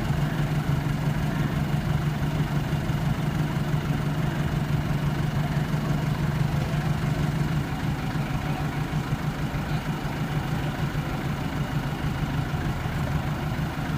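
Forklift engine running steadily with an even low hum.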